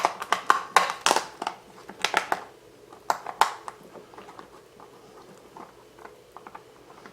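Small parts being handled on a workbench: a quick run of sharp clicks and rustles over the first few seconds, then a few faint ticks.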